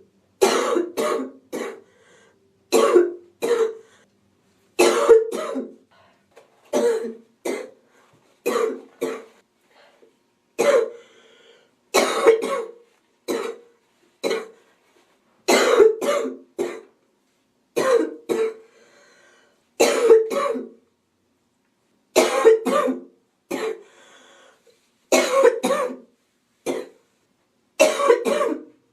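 A woman with a cold giving a relentless, wheezy, hacking cough: sharp coughs in clusters of two or three, about every two seconds, with faint breaths drawn between some of the fits.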